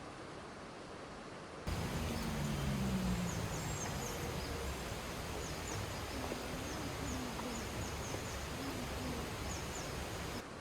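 Outdoor ambience with small birds chirping: short, high chirps repeat over a steady, noisy background. It starts suddenly about two seconds in and stops just before the end.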